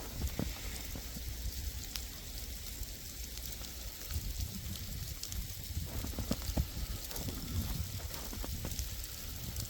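Sleet and freezing rain falling, many small pellets ticking on the snow and ground, over a steady low rumble.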